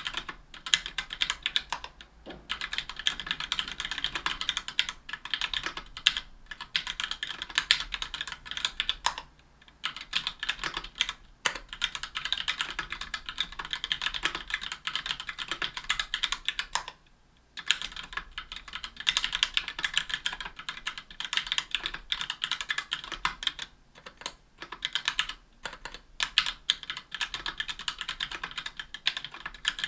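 Steady, fast typing on a 60% aluminum-case mechanical keyboard with retooled Gateron Black Ink linear switches on an aluminum plate, under GMK keycaps: a dense run of keystroke clicks and clacks with a few brief pauses, the longest about half a second a little past the middle.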